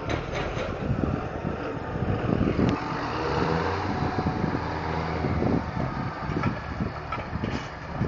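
Farm tractor diesel engines running close by, with a steadier engine drone from about three to five and a half seconds in as a tractor passes near. Gusts of wind rumble on the microphone.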